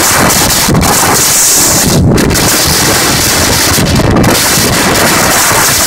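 Strong wind buffeting the microphone in a loud, steady rush, over the running noise of a moving train.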